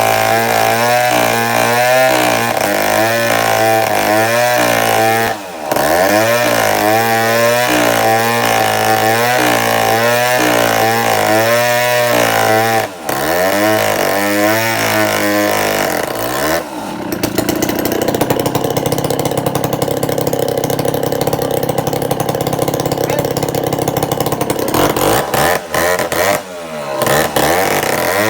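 Chainsaw engine running, its speed rising and falling over and over, with two brief drops; about two-thirds of the way in it is held at a steady high speed, then cuts back in short dips near the end.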